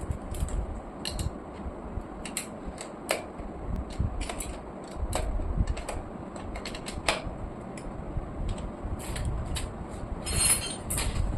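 Bicycle repair work: irregular clicks and light metallic taps of tools and parts, with a denser run of clicks near the end, over a steady low hum.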